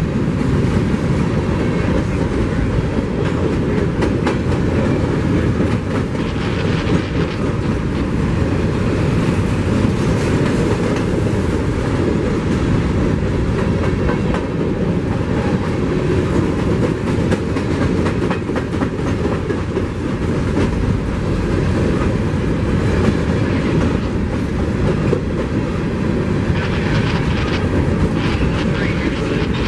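A train rolling past: a steady, loud rumble of steel wheels on the rails, with the clickety-clack of wheels crossing rail joints.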